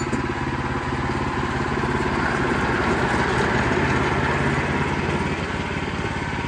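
Sawmill's gas engine running steadily under load while the saw blade cuts through a log.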